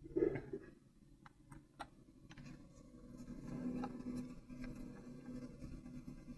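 Hands unpacking a toy: a bump just after the start, a few light clicks, then a longer stretch of rubbing and scraping.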